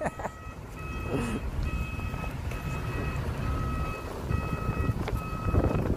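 Loaded dump truck reversing, its backup alarm beeping about once a second over the steady running of its diesel engine.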